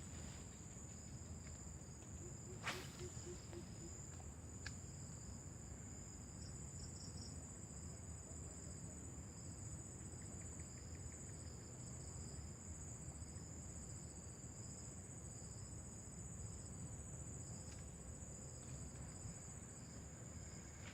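Steady high-pitched chorus of insects, crickets or similar, buzzing continuously over faint outdoor background noise, with one sharp click about three seconds in and a smaller tick a couple of seconds later.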